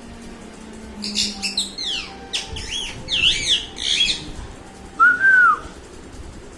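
Agitated parrot calling: a quick run of high chirps that sweep up and down for about three seconds, then one loud, clean whistle that rises and falls, about half a second long.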